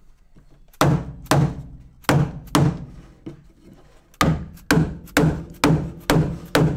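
Dead-blow mallet striking a wooden block laid on car carpet, dull wooden thuds: four blows, a pause of over a second, then six quicker ones about two a second. The blows seat the carpet's beaded lip under the metal rocker edge of a VW Beetle.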